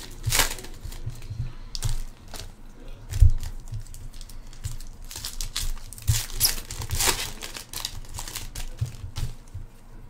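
Trading-card pack wrappers crinkling as packs are handled, with irregular rustles and soft thumps against the table, one heavier knock about three seconds in.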